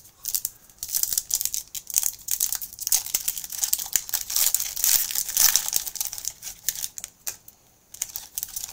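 Crinkling and tearing of a 2022 Prestige NFL trading-card pack wrapper as it is ripped open and handled, dense for about seven seconds, a brief pause, then more crinkling near the end.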